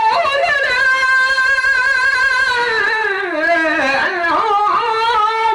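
A man's voice singing a long, held, lamenting line into a microphone: the sung part of a zakir's majlis recitation. The pitch sinks and wavers about three seconds in, then climbs back to the held note near the end.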